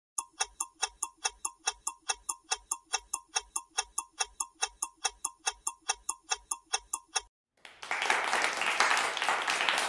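Clock-ticking countdown sound effect, sharp even ticks about four a second, timing the answer to a quiz question. It stops after about seven seconds, and a burst of applause follows as the answer is revealed.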